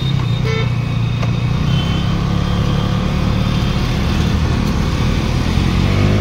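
KTM Duke 200's single-cylinder engine running steadily as the motorcycle rides along; near the end the engine note rises as it accelerates.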